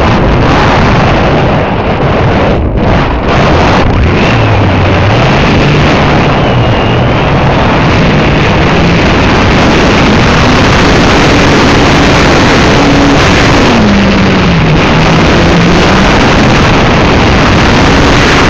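Heavy wind rush on the microphone of an onboard camera just behind a spinning propeller. Under it the motor's low hum climbs in pitch around the middle, drops back a few seconds later and starts to rise again near the end.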